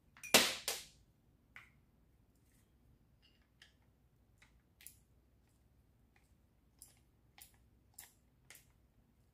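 Handling noise from taking apart an electric palm sander: two loud, short scuffs and clatters of its plastic housing about half a second in, then light scattered clicks of a screwdriver tip against the screws and plastic casing.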